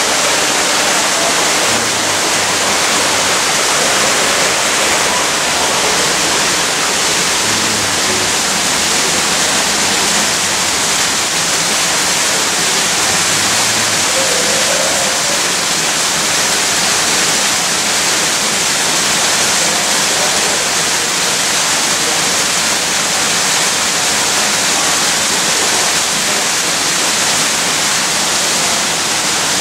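Steady loud rushing hiss that stays even throughout, with no breaks or separate events.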